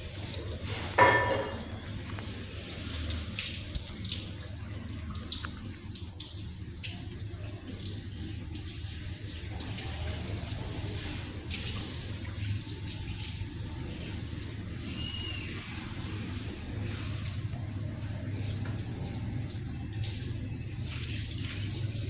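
Water running from a tap into a sink, a steady splashing hiss over a low hum. About a second in comes one brief, loud pitched sound.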